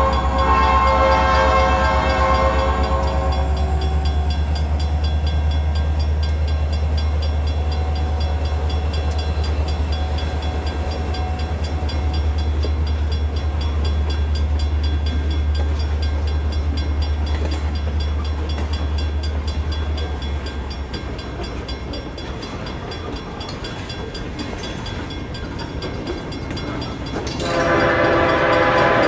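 Diesel locomotive horn sounding for the first few seconds and again near the end, over a steady low engine rumble that fades about two-thirds of the way through. It is the locomotive sound accompanying an N scale model train passing a grade crossing.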